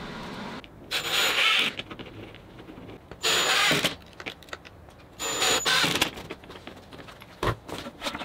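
Cordless drill driving screws to fasten casters to a plywood base, in three short bursts about two seconds apart, each with a high motor whine. A few knocks near the end.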